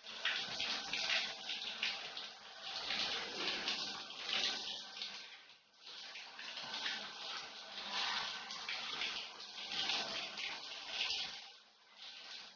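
Handheld shower spraying water over a person and onto the tiled walls and floor: a splashing hiss that swells and fades, falling away near the end.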